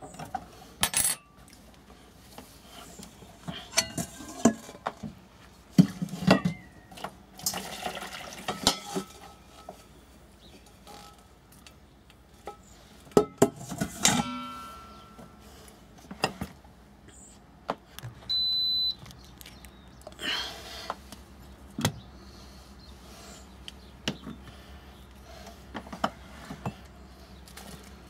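Handling of a stainless steel Instant Pot inner pot and utensils: scattered clinks, knocks and scrapes of metal, with one ringing knock about halfway through. A single short electronic beep sounds about two-thirds of the way in.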